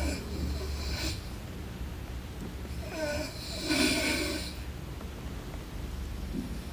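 A person's slow, noisy breathing, one breath about every four seconds, the loudest about four seconds in.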